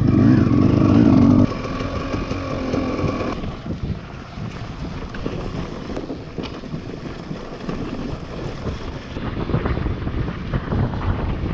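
Dirt bike engine running loud, dropping suddenly about a second and a half in to a quieter engine note that fades into a low, noisy rumble with wind on the microphone.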